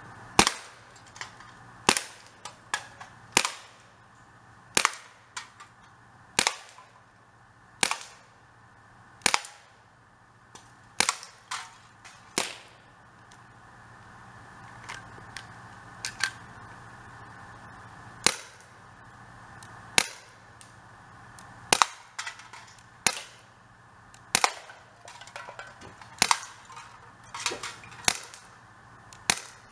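Umarex Beretta PX4 Storm CO2 air pistol firing a string of sharp shots about one and a half seconds apart, with fainter clicks between shots and a pause of a few seconds midway.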